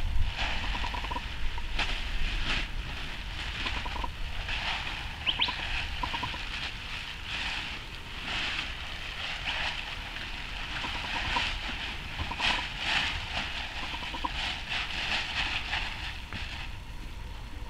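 Plastic tarp rustling and crinkling in irregular bursts as it is rubbed over and draped across a horse's back, with wind rumbling on the microphone in the first few seconds.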